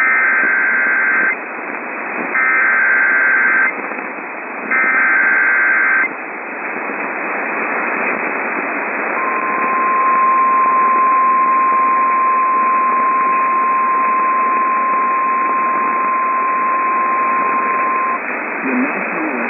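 EAS SAME header: three identical bursts of warbling digital data tones, each about a second and a half long, a second apart. A few seconds later comes a single steady one-pitch alert tone, the NOAA Weather Radio 1050 Hz attention tone, held for about nine seconds. All of it sits over constant radio static, opening a severe thunderstorm warning.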